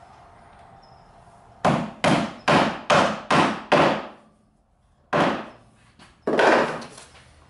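Claw hammer tapping drawer front adjusters into their drilled holes in the back of a drawer front, driving them flush: six quick blows about two and a half a second, then two more after a short pause.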